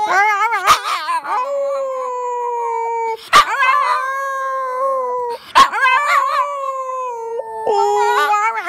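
Schipperke howling: long howls that sag slowly in pitch. Each is broken off briefly twice, about three and five and a half seconds in, and each new howl starts with a sharp yip.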